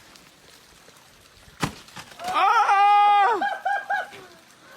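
A single sharp knock, then a person's loud, long yell held for about a second, breaking into a few quick laughs near the end.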